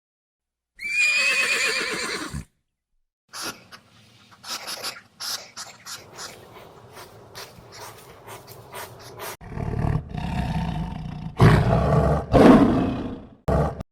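Lion roaring: a run of loud, deep, rough roars and growls in the last few seconds. Before it come a short high-pitched animal call and a stretch of scattered clicks and rustles.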